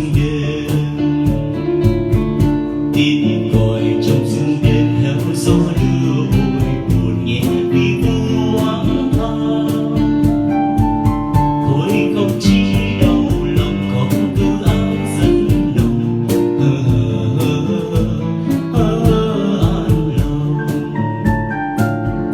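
Music: a Vietnamese song with guitar, held chords and a steady beat.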